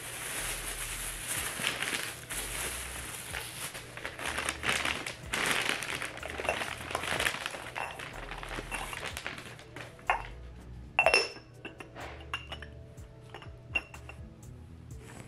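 Plastic shopping bags and wrapping paper rustling and crinkling as a ceramic pumpkin jar is unwrapped, then a ceramic clink from about ten seconds in as the jar and its lid knock together and are set down. Background music runs underneath.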